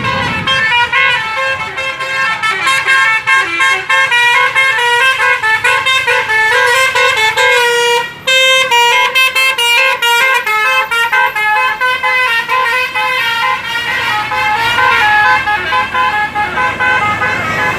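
Telolet basuri multi-tone bus air horn playing a tune, its notes changing several times a second with a brief break a little past the middle.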